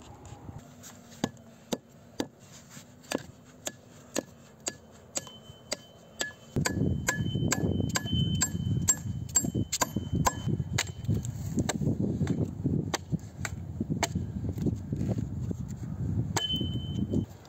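Nail being driven into pine planks with the back of an axe: steady blows about two a second, each with a short metallic ring, thinning to a few blows later. From about six seconds in, a loud, uneven wind rumble on the microphone runs under the blows.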